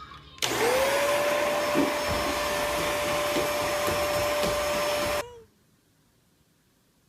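An electric fan motor starts about half a second in. Its whine rises quickly to a steady pitch over a loud rush of air, then the sound cuts off suddenly about five seconds in.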